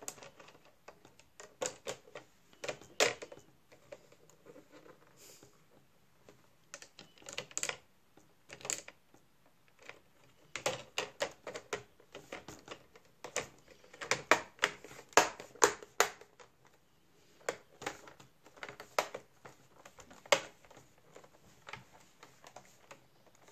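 Plastic laptop screen bezel being pressed onto the display lid, its clips snapping into place in irregular runs of sharp clicks, thickest past the middle.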